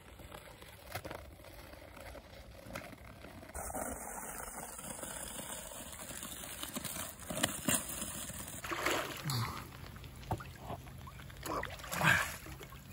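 Lake water splashing and sloshing as a person breaks through thin ice and lowers himself into the water, with scattered sharp knocks and cracks of ice; the loudest splashes come about two-thirds of the way in and near the end.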